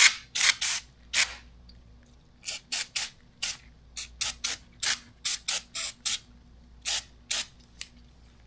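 Aerosol can of electrical parts cleaner sprayed in about twenty short hissing bursts, some in quick runs of two or three, stopping about seven and a half seconds in.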